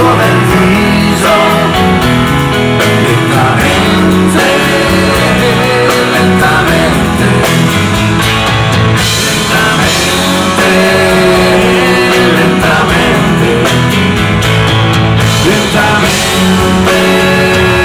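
Live rock band playing at full volume: electric guitar, bass guitar and drums, with keyboards, through a stage PA.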